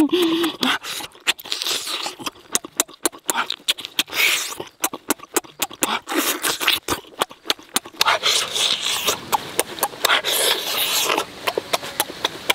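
Close-up eating sounds of a person biting and chewing grilled squid: rapid wet lip smacks, clicks and slurps, easing off near the end.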